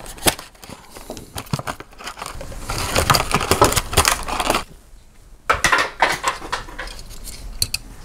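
Clear plastic blister pack of a 1/64 diecast being cut and pulled open: stiff plastic crackling and clicking, densest about three seconds in, a short pause past the middle, then scattered clicks.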